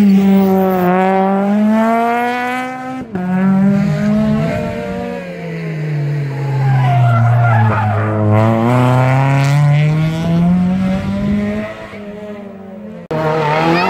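Rally car engine revving hard out of sight, its note falling and climbing as it comes off and back on the throttle through the gears, with a sharp break in the note about three seconds in.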